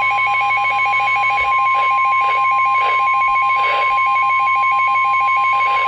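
Midland WR-300 weather radio sounding a warning alert: a fast electronic warble beeping about six times a second over the steady 1050 Hz NOAA Weather Radio warning tone, which signals that a warning message is about to be read.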